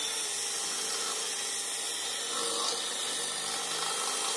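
Electric drill running steadily with a 13/32-inch bit in a headlight housing, the bit being wiggled back and forth to widen the round hole into an oval.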